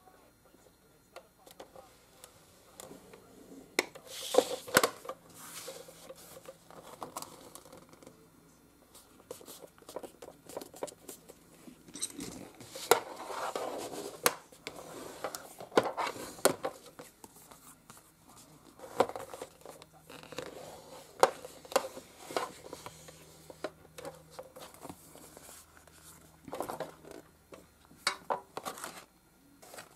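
Scissors cutting paper and cardstock, with the paper rustling as it is handled: irregular snips, clicks and taps, loudest a few seconds in and around the middle.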